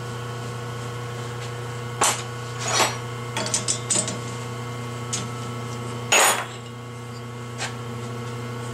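Metal clanks and clicks of a T-handle chuck key being fitted and turned in a lathe's three-jaw chuck, loosening the jaws to release a cylinder head, with the loudest knock a little after six seconds. A steady electrical hum runs underneath.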